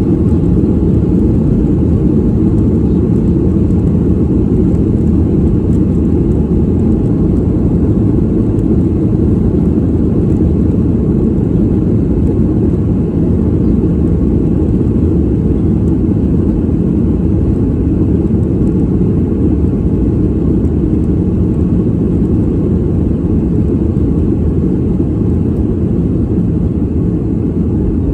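Airliner cabin noise heard from a passenger seat: a steady, even, low rumble of engines and airflow that does not change.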